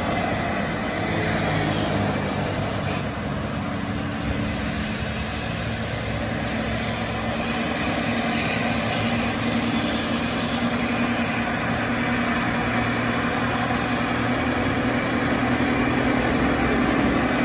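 Heavy diesel trucks on a road: a steady low engine hum over tyre noise, building slightly in the second half as a truck approaches.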